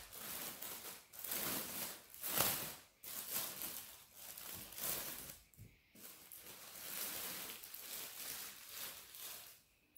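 Clear plastic clothing bags crinkling and rustling as they are handled and a garment is pulled out, loud and uneven, coming and going.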